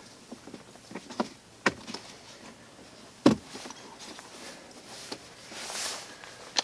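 A few sharp plastic clicks and knocks as door trim parts and connectors are handled and fitted, the loudest a little past the middle, with a short rustle near the end.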